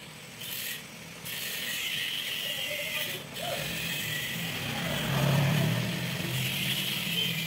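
Metal parts clicking and scraping as a new rubber seal is worked onto the shaft of a water pump motor's rotor, broken by short pauses about one and three seconds in.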